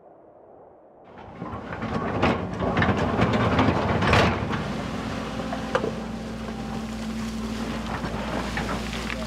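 Excavator's diesel engine running, with the bucket knocking and scraping through rock and gravel in a cluster of sharp clacks from about a second in to about four seconds in, then a steady low engine hum. Faint wind before the digging noise starts.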